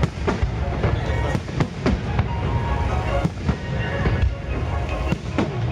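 Fireworks display: a rapid run of bangs and crackling bursts, several a second, with music playing underneath.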